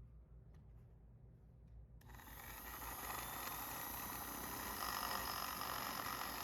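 A small electric motor switching on about two seconds in, spinning up over about a second and then running steadily with a hissing whine; before that only a faint hum and a few light clicks.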